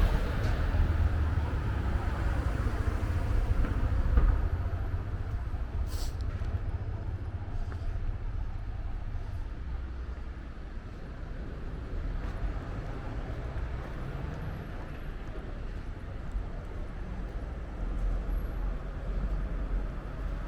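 City street ambience: a steady low rumble, loudest for the first few seconds and then easing off, with a faint click about six seconds in.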